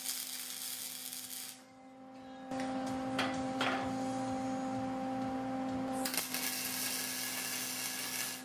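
Electric arc welding on steel tubing: two welds, each a steady crackling hiss, the first about a second and a half long, the second starting about six seconds in and lasting a little over two seconds. Between them a steady hum and a couple of light metal taps.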